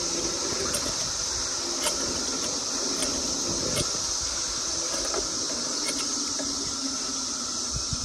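Steady high-pitched buzzing chorus of many cicadas, heard over the low rumble of a slow-moving car on the road.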